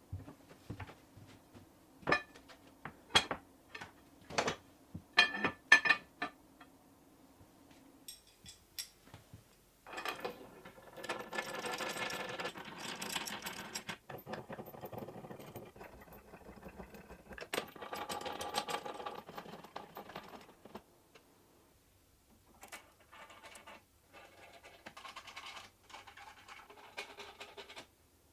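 Sharp metal clinks and knocks, about eight in quick succession, as aluminium plates are handled and set down on an aluminium saw frame. Then several stretches of scratchy rattling as a hex key turns bolts into the frame's aluminium end plate.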